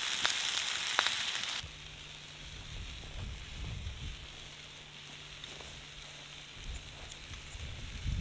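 Vegetables sizzling and crackling on a hot grill, a loud steady hiss with sharp pops that cuts off suddenly about a second and a half in. A quieter open-air background follows, with low rumbling and a faint steady low hum.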